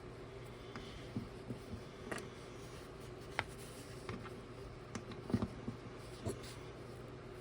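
Small plastic clicks and taps of toy building-brick parts being handled and pressed together, a handful scattered through, likely tires going onto rims, over a faint steady hum.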